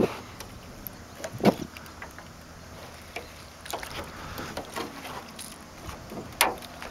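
Fishing in a small boat while a hooked bass is fought to the side: scattered knocks and clicks of rod and tackle handling over a low steady background, with two louder knocks, one about a second and a half in and one near the end, when the fish is thrashing at the surface.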